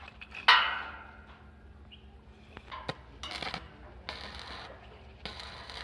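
Metal clanking on a steel frame: one sharp strike about half a second in that rings briefly, then scattered clinks, knocks and short noisy bursts.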